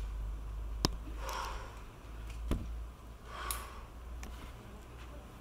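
A rock climber's hard, hissing exhales of effort on a steep sport route, one just over a second in and another about three and a half seconds in. Two sharp clicks fall between them, over a steady low rumble.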